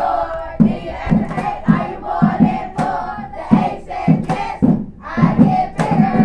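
A class of children chanting together in unison, in a steady rhythm of about two loud syllables a second.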